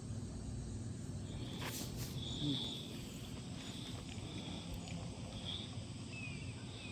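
Outdoor background with short high-pitched chirps, from birds or insects, repeating about once a second, a few quick falling chirps near the end, and a couple of light knocks about two seconds in.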